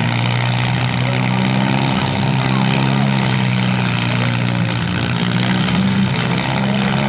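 Demolition derby compact cars' engines running loudly and steadily, holding a constant pitch with no crashes.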